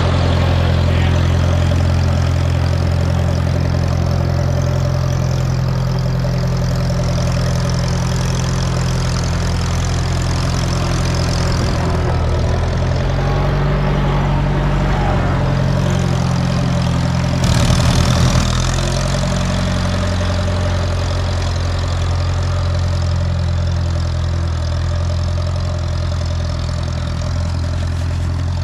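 Allis-Chalmers Model D road grader's engine running steadily. Its pitch shifts for several seconds past the middle, and there is a brief louder burst about two-thirds of the way through.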